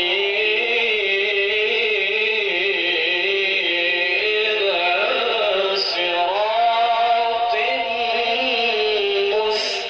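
A male qari reciting the Quran in the melodic tilawah style into a microphone. He draws out long, wavering melismatic notes, and a new phrase begins about six seconds in.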